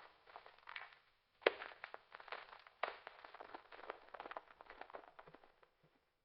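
A rapid, irregular run of crackling clicks and pops, with a short break about a second in and two sharper pops after it; the crackling fades out near the end.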